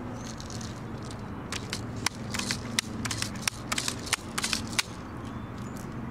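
Daisy 880 multi-pump air rifle being pumped: about five strokes of the underlever, each a sharp clack with a rush of air, charging the gun for a shot. A steady low hum runs underneath.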